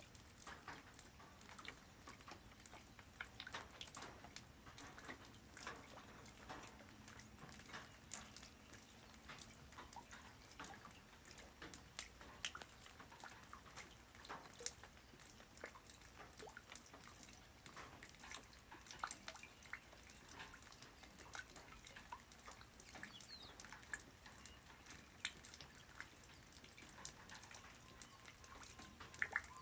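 Light rain falling on the ground: a faint, steady hiss with many scattered drops ticking at irregular moments.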